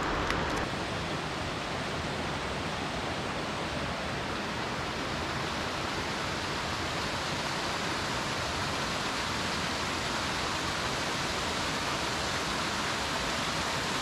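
Mountain stream rushing over rocks, a steady even rush of water.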